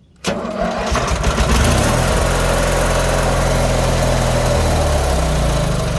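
Craftsman GT6000 garden tractor engine started with the push-button starter on its freshly rewired ignition: it turns over briefly, catches within about a second and then runs steadily.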